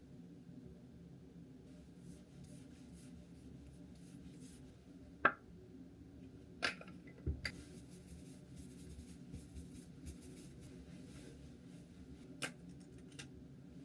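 Quiet close handling sounds: faint rustling and scratching with a few sharp clicks or taps, over a steady low hum.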